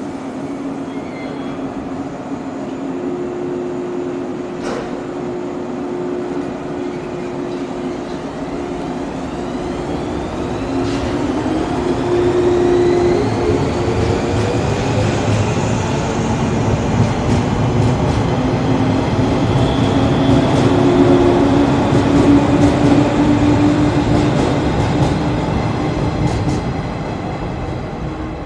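A JR 115-series electric train pulls away. Its motor whine rises in pitch as it gathers speed, and the sound grows louder as the cars pass close by, then fades near the end as the train moves off. There is a single sharp click about four and a half seconds in.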